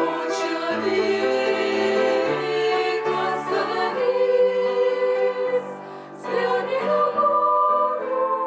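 A group of women singing a Russian song in several-part harmony, with held chords that change every second or so and a short break between phrases about six seconds in.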